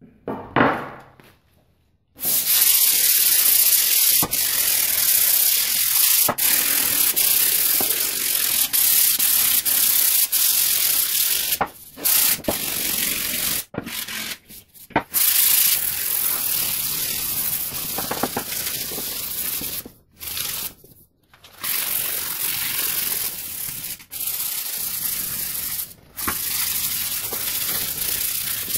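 Sandpaper rubbed by hand along a charred wooden axe handle: a continuous scratchy sanding sound, starting about two seconds in and broken by a few brief pauses between strokes.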